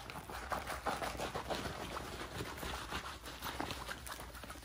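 A rolled diamond painting canvas being unrolled by hand, its plastic cover film crinkling and rustling in a run of irregular small crackles.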